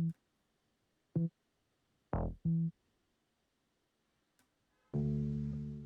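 A bass loop sample playing back: short, separate low notes with dead silence between them, one with a quick downward pitch sweep, then a longer held note about five seconds in that fades away.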